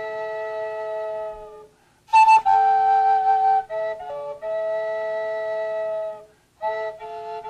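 A flute played solo in long held phrases, a steady lower note sounding under a changing upper melody, with two brief pauses for breath.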